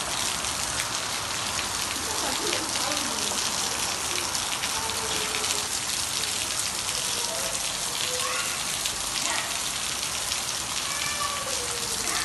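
Heavy rain falling steadily, a dense even hiss of drops hitting the balcony floor and the surroundings.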